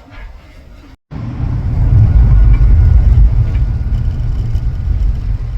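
Car on the move: a steady low rumble of engine and road noise that cuts in abruptly about a second in, after a moment of silence.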